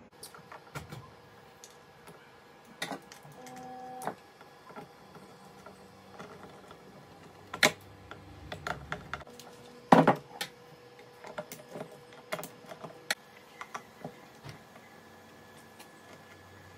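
Irregular clicks, taps and knocks of chrome lugs and a snare-drum shell being handled and turned on a stone worktop, the loudest knock about ten seconds in, over a faint steady hum.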